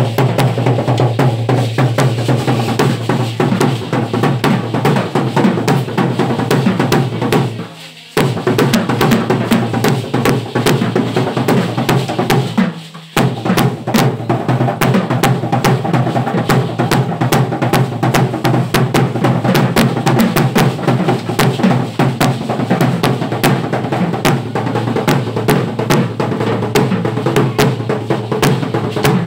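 Drum and percussion music for a Mexican indigenous dance, a loud steady beat with many sharp clicks layered over it. The music drops away briefly twice, about 8 and 13 seconds in.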